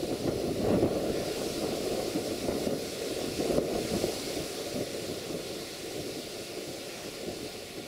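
Gusty, rumbling wind buffeting the microphone, with irregular low surges over a steady hiss.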